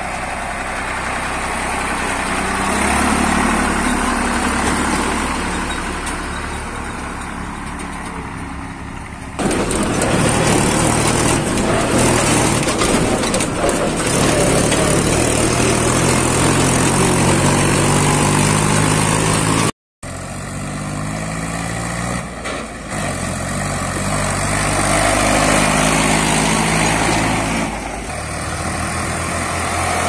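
Diesel farm tractor engines running as the tractors drive along. The sound jumps louder about nine seconds in, with a close ride-along on a red Mahindra tractor. After a brief dropout near twenty seconds, another tractor pulling a trolley is heard, its engine pitch rising and falling with the throttle.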